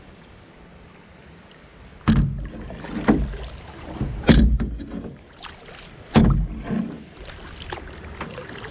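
Kayak paddling: after a quiet couple of seconds, a run of about five sudden splashes and knocks from paddle strokes, roughly a second apart.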